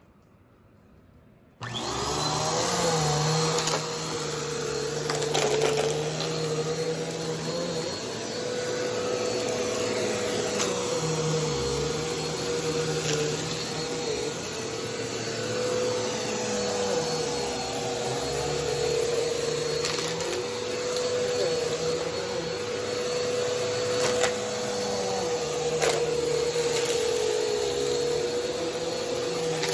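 Vacuum cleaner switched on a little under two seconds in, then running steadily as it is pushed over carpet in slow passes, its low hum shifting slightly from pass to pass.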